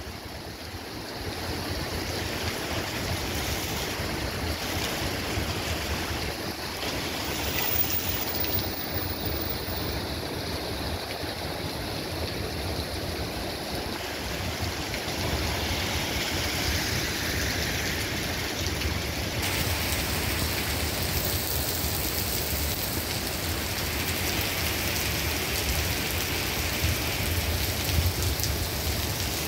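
Heavy rain pouring onto a wet city street, a steady rushing hiss.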